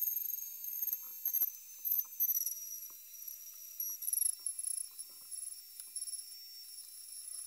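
Table-mounted router spinning with a steady high-pitched whine that sags a little in pitch about two seconds in, as the bit cuts into a hand-turned wooden dowel, with scattered ticks and scrapes from the cut.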